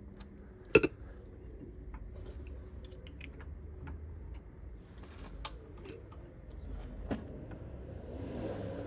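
Scattered small clicks and taps of brake pads being handled and seated in the caliper carrier, with a sharper click about a second in and another about seven seconds in.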